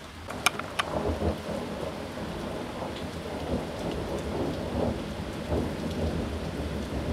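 A close thunderclap breaks in about half a second in with a couple of sharp cracks, then rumbles on unevenly. Steady rain hisses underneath.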